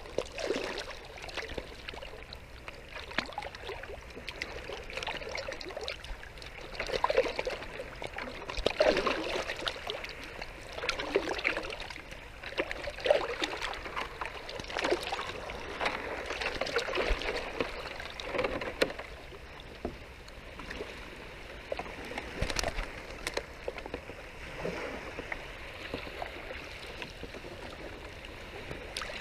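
Shallow water splashing and sloshing in irregular bursts as a wet set net is hauled through it by hand into a plastic basket.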